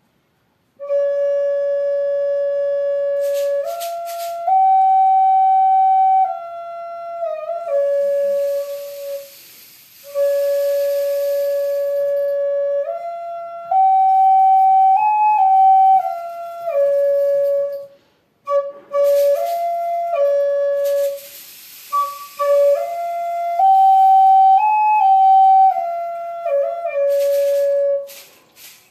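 Native American flute playing a slow melody of long held notes that step up and down a few tones and fall back to the low home note, the same phrase repeated with short pauses between. Twice, a steady hiss sounds behind the flute for a few seconds.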